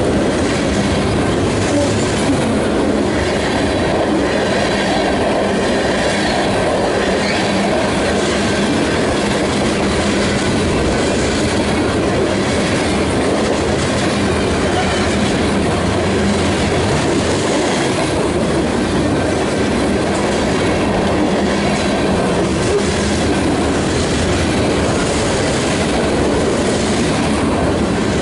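Freight train of covered hopper cars and tank cars rolling past close by: steel wheels running on the rails in a steady, loud, unbroken noise.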